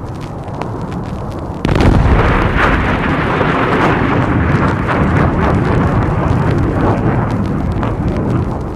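A low rumble, then about two seconds in a sudden, loud explosion that carries on as a sustained rumbling roar with crackling, easing off near the end: a large blast from military ordnance.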